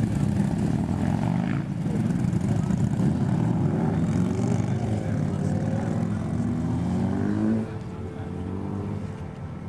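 Motorcycle engines running close by, one revving up with a rising pitch about three-quarters of the way through, after which the sound drops off suddenly and runs on more quietly.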